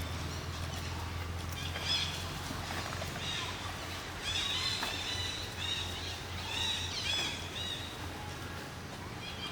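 Short high-pitched chirping animal calls, repeated in quick clusters and busiest in the second half, over a steady low hum.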